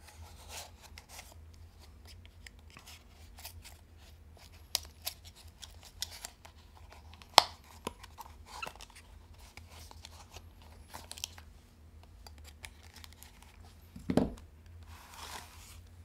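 A small cardboard box being slit open with a folding pocketknife: scattered small scrapes and clicks of the blade cutting through the card and tape, with one sharp click about seven seconds in. A thump and a short rustle come near the end as the box is opened.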